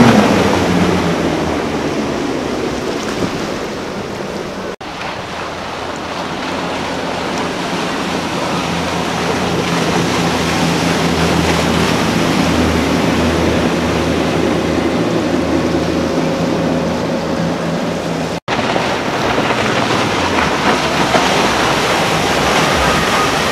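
Center-console boats with outboard motors running past at speed: a steady rush of wake and spray water with a low engine drone underneath. The sound drops out for an instant twice, where one passing boat cuts to the next.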